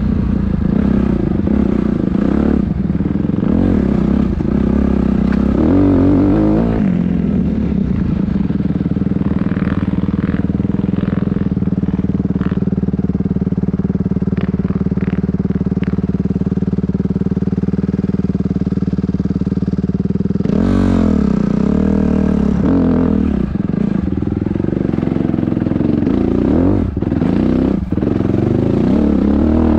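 Dirt bike engine running under way, its revs rising and falling over the first few seconds, then held at a steady pitch for a long stretch. About two-thirds of the way through the revs jump up and keep changing again. A few light ticks come during the steady part.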